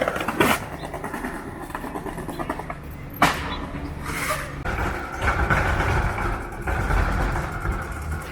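A vehicle running, with two sharp clacks, about half a second and about three seconds in, and a steady whine setting in about five seconds in.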